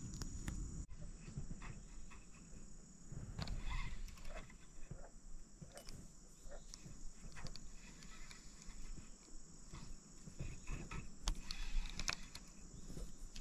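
Scattered soft clicks, knocks and rustles from hands working a spinning rod and reel while casting and retrieving a wacky-rigged soft-plastic worm.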